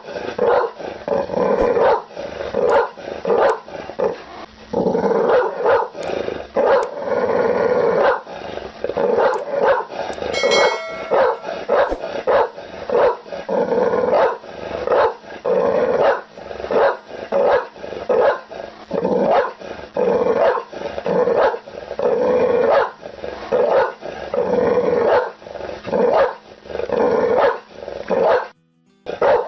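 Pit bull barking aggressively in rapid, repeated barks, two or three a second, with some growling. The barking breaks off for a moment near the end.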